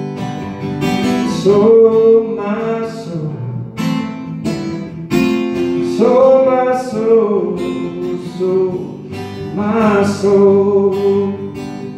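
Acoustic guitar strummed in a slow song, with a man singing long, drawn-out notes over it.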